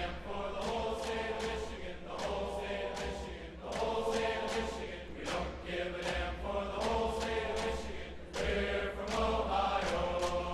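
Vocal music: chant-like singing in phrases of a second or two with short breaks between them.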